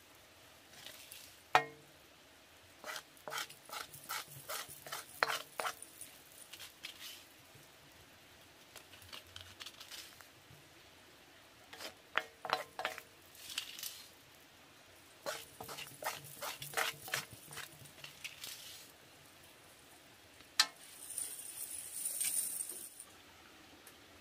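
A spoon scraping and clinking against a steel wok as fried shrimp are scooped out onto a plate, in two runs of quick scrapes and taps, with a couple of sharper knocks and a short hiss near the end.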